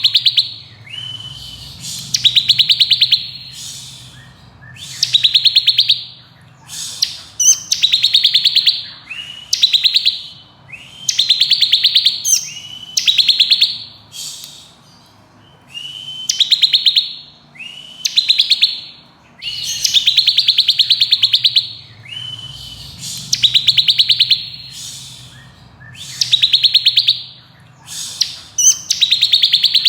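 Bar-winged prinia singing: loud, rapid, buzzy trills about a second long, repeated one after another every second or two, with short high notes between them.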